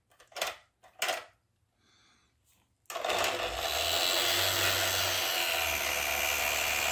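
A few sharp plastic knocks as the toy boat is handled in the sink, then about three seconds in the boat's small electric motor and 3D-printed flapper paddle mechanism start up and run with a loud, steady mechanical buzz.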